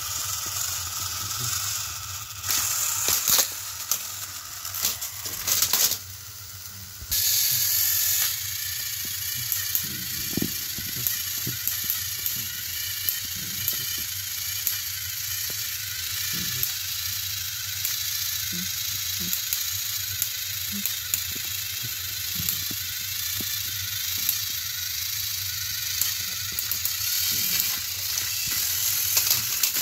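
Small electric motors of battery-powered Thomas & Friends toy engines whirring steadily as they push against each other on plastic track, with many small clicks and a few louder clattering bursts in the first eight seconds.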